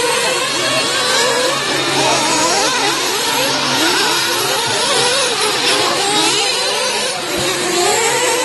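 Several 1/8-scale nitro RC truggies' small two-stroke glow engines revving as they race, their overlapping notes rising and falling constantly.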